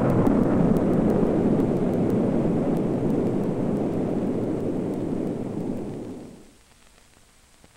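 Storm wind sound effect: a steady, low rushing roar that fades away to near silence about six seconds in.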